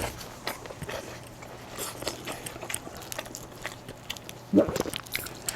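Close-up chewing and biting: many small wet clicks and crunches of food in the mouth. About four and a half seconds in comes a brief, louder pitched sound, voice-like, the loudest moment.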